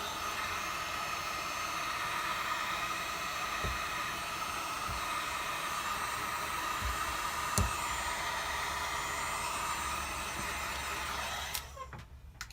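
Heat gun blowing steadily, warming the back-glass adhesive so the glue turns sticky; it switches off about a second before the end. A single sharp click sounds partway through.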